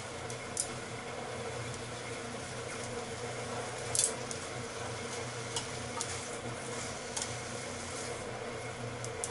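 Sliced pork frying in a pan, stirred with chopsticks that click and scrape against the pan a few times, loudest about four seconds in, over a steady hum.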